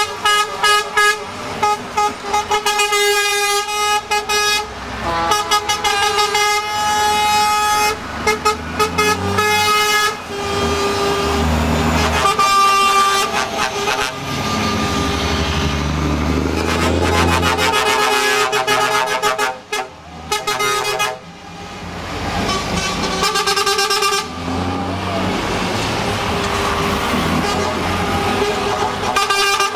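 Heavy trucks (Scania, DAF and MAN tractor units) driving past one after another and sounding their horns: a quick run of short toots at the start, then longer held blasts on and off. Their diesel engines rumble loudly as they pass, most of all in the middle stretch.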